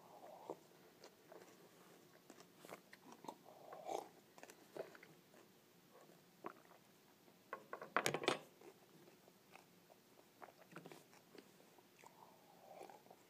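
Quiet mouth noises of chewing and swallowing while eating a hot chili, with sips from a plastic cup. A brief louder cluster of clicks and rustle comes about eight seconds in.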